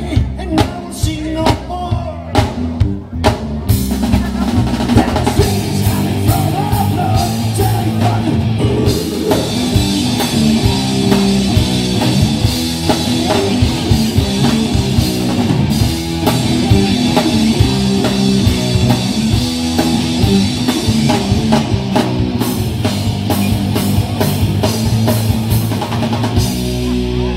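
Live rock band playing on electric guitars and drum kit: about three seconds of separate drum hits, then the full band comes in with a steady beat.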